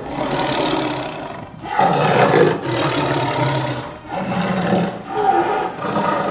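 A big cat roaring: a run of long, low, rough calls, each lasting one to two seconds, with short breaks between them.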